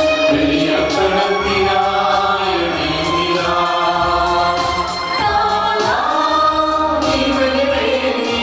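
A choir singing a hymn, several voices together over a regular beat.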